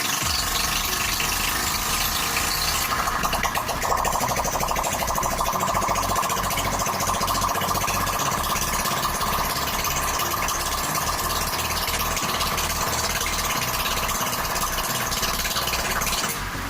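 Honda Vario scooter's single-cylinder four-stroke engine running on test after a piston replacement, growing busier and louder about three seconds in.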